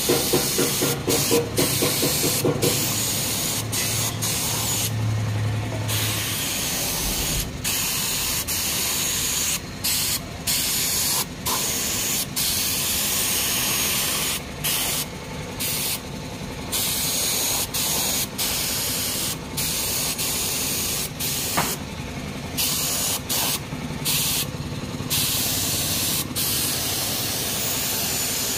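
Air-fed paint spray gun hissing as it sprays paint onto a motorcycle alloy wheel, cutting off briefly and restarting many times as the trigger is released and pulled again. A rhythmic pulsing hum runs under the hiss for the first two seconds or so.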